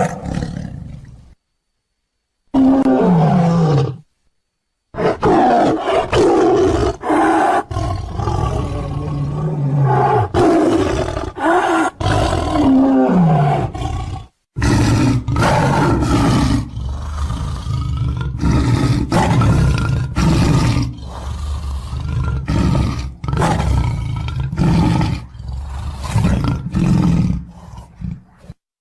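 Loud, deep roaring and growling of a large beast, as a sound effect: a run of long roars that rise and fall in pitch, broken by a few short dead-silent gaps.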